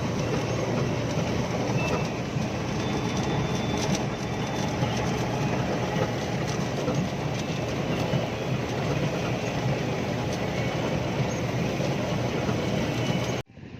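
Wheat harvesting machinery running with a loud, steady mechanical din and light rattling ticks through it. It cuts off abruptly near the end.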